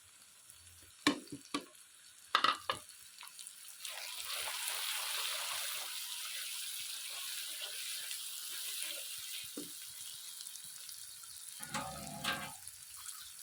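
Ground spices frying in a pan of onion-tomato masala: a few sharp clinks of a spoon against the pot at the start, then a steady sizzle as the masala is stirred.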